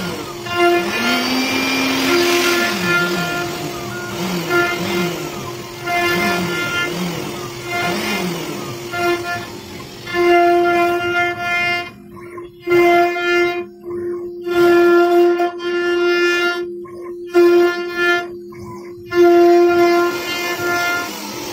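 CNC router cutting a carved design into wood: the spindle gives a steady high whine, with machine-tone glides in the first half as the head moves, and the cutting hiss drops out briefly several times in the second half.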